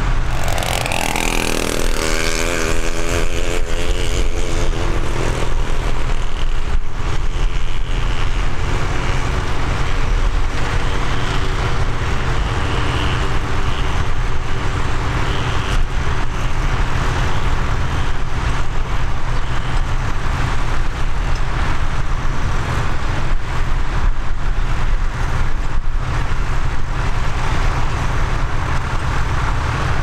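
Vintage tractor engines running steadily under ploughing load, with a deep, continuous low rumble. A few seconds in, an engine note rises and wavers briefly.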